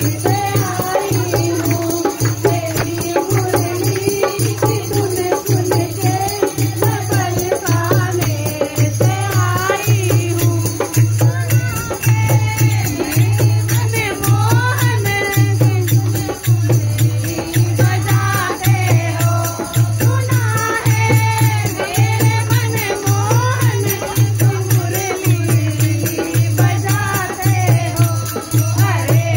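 Women singing a Hindi Krishna bhajan to a dholak beating a steady, even rhythm of about one stroke a second, with a jingling rattle-like percussion over it.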